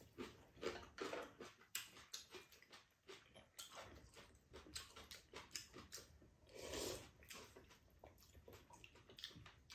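Faint chewing and mouth sounds of two people eating, with irregular soft clicks of spoons against ceramic bowls.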